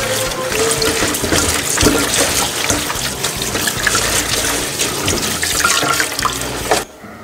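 Kitchen tap running into a stainless steel sink while spinach is rinsed under the stream, the water splashing. The flow cuts off suddenly near the end.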